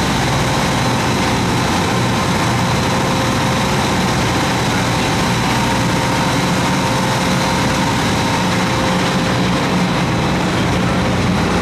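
Fishing boat's engine running steadily under way, heard from inside the cabin: a constant low drone with an even rushing noise over it.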